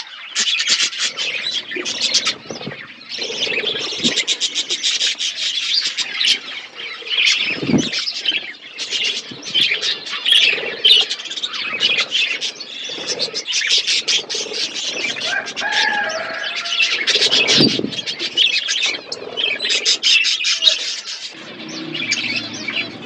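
A flock of budgies chattering: continuous overlapping chirps and warbling, with occasional wing flaps or short thumps.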